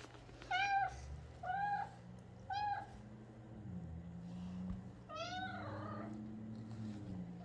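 Kitten meowing in short, high calls: three about a second apart, then a longer, wavering one about five seconds in.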